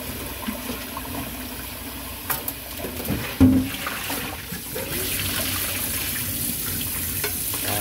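Kitchen tap running into a stainless steel pot of goose barnacles being rinsed, with a few clicks and one loud knock about three and a half seconds in. In the second half the washing water is poured out of the pot into the sink, and the splashing grows.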